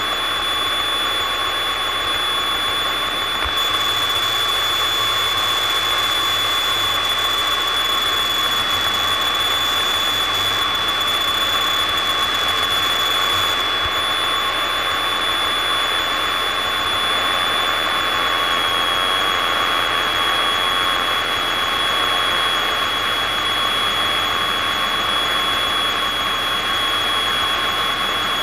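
Single-engine propeller airplane's engine and propeller running steadily at climb power, heard from the cockpit, with a steady high-pitched whine over the noise.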